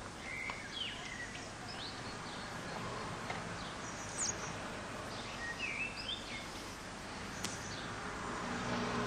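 Outdoor ambience: a steady hiss with scattered short bird chirps.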